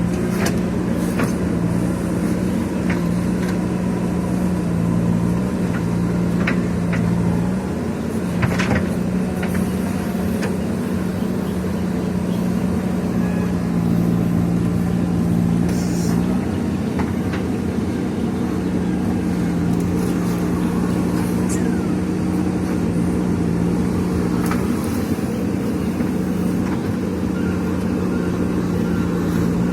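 Diesel engine of a JCB backhoe loader running steadily, its pitch shifting slightly a few times, with a few short knocks.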